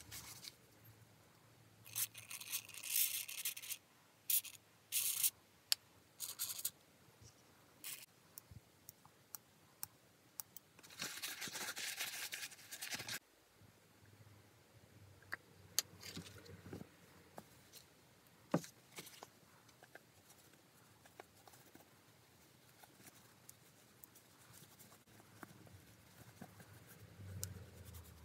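Paper towel and cloth rubbing over a pair of steel round-nose pliers as they are wiped and polished. It comes as bursts of rustling and scraping, with a longer rub about eleven seconds in and scattered small clicks of the metal being handled.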